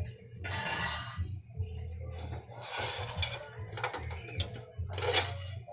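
Parts of a double-pole clothes rack being handled and fitted together during assembly: a few separate bouts of clattering and scraping, the loudest near the end.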